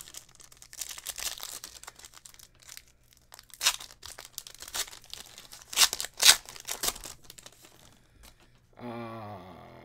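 Trading-card pack's shiny plastic wrapper being torn open and crinkled by hand, in bouts of crinkling with sharp crackles, loudest about six seconds in.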